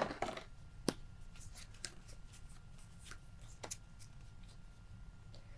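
Pokémon trading cards being handled and sorted, with faint papery rustling and a scattering of soft card clicks, a couple of them sharper.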